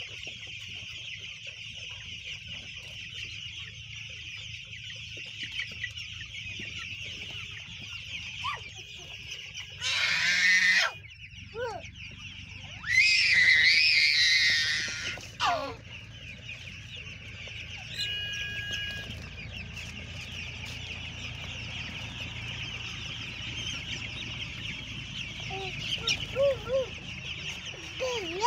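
A large flock of young broiler chicks peeping continuously in a dense, steady chorus. A toddler squeals loudly twice, about ten seconds in and again around thirteen seconds in for a couple of seconds.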